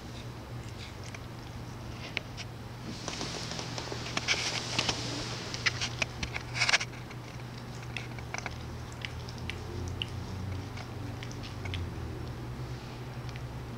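Siberian cat licking a rabbit's fur: scattered small wet clicks of the tongue, thickening into a denser rasping stretch about three seconds in that ends near the seventh second, over a steady low hum.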